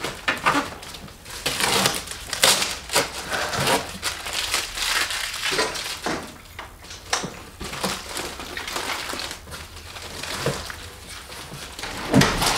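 A cardboard shipping box being opened by hand: packing tape pulled off the top and the cardboard flaps and packing inside crinkling and rustling in a string of irregular rips and scrapes.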